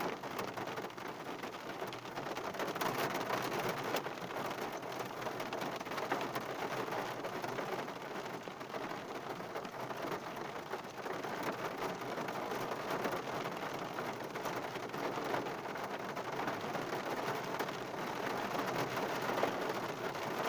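Heavy rain drumming steadily on a car's roof and windshield, heard from inside the car: a dense, even patter of countless drops with no letup.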